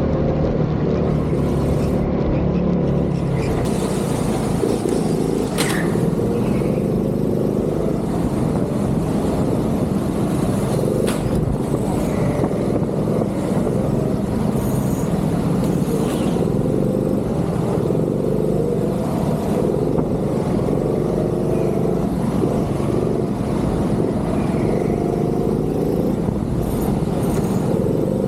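Go-kart engine running hard at racing pace, heard from on board, its pitch rising and falling as the throttle is worked through the corners.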